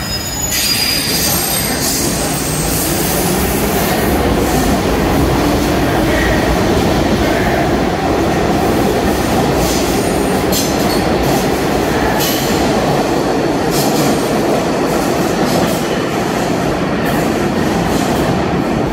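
R62A subway train pulling out of the station. Its running noise grows louder over the first few seconds as it picks up speed, then holds as a steady rumble, with a few clicks of the wheels over the rail as the cars go by.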